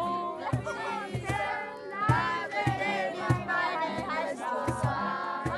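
Background music with a steady drum beat and singing voices.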